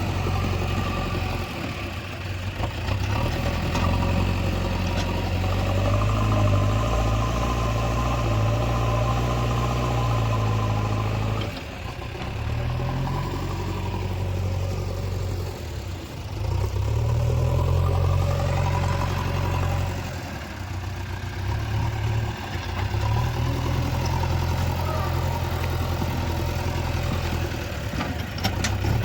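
Diesel engine of earth-moving machinery running under changing load. The engine note dips and picks up again several times as the machine works.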